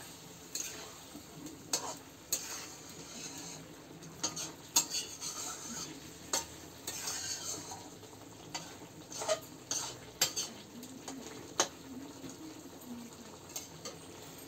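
A metal spatula scraping and clinking against a steel karahi at an irregular pace as frying vegetables are stirred, with a faint sizzle from the pan.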